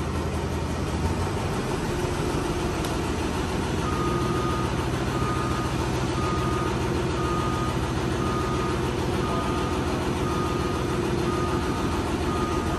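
Lifting vehicle's engine running steadily; about four seconds in its reversing alarm starts beeping, roughly once a second, as it backs up.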